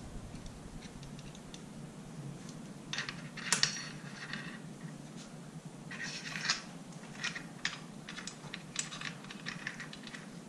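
Small metal parts of a Panzer AR-12 Pro 12-gauge shotgun clicking and clinking as they are handled and fitted back onto the front of the barrel during reassembly. Light scattered taps, with a short flurry about three seconds in and another about six seconds in, then single ticks.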